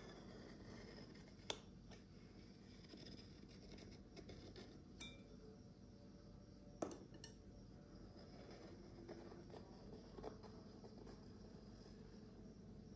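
A handful of light clinks and taps of kitchen utensils against dishes, spread through near-silent room tone.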